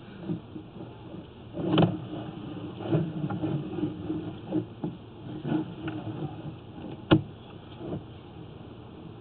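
Handling noise of a sewer inspection camera being pushed along a sewer line: irregular knocks and clatter, the sharpest about two seconds in and again about seven seconds in, over a steady low background hum.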